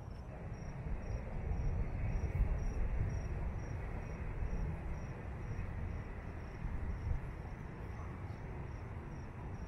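Vehicle driving slowly along a sandy track, heard from inside the cabin as a steady low rumble. A faint high chirp repeats about twice a second throughout.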